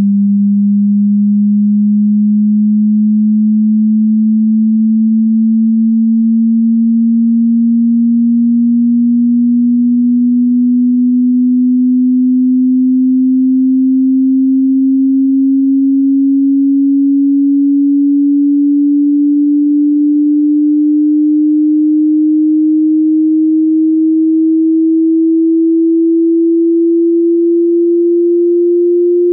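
A pure sine test tone, low-pitched and steady in loudness, gliding slowly and evenly upward in pitch: a frequency sweep for a hearing test.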